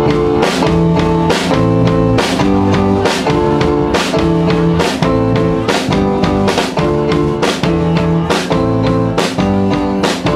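Live band starting a song: bass guitar and drum kit kick in together, with sustained chords over a steady beat of about two strikes a second.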